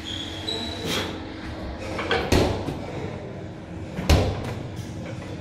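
A plate-loaded push sled being driven across gym turf: heavy thumps and knocks of the sled and its plates, the loudest about two seconds and four seconds in, with a short squeak in the first second.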